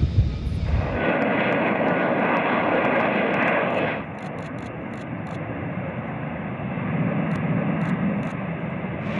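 F-35B Lightning II jet engine running with a steady, loud roar. The sound changes abruptly about a second in and again about four seconds in, where it drops to a lower, duller roar.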